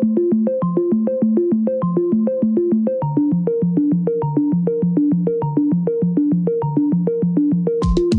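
Background music: a synthesizer or electric-piano keyboard playing a quick, repeating arpeggio, with the chord changing about three seconds in. A drum beat comes in right at the end.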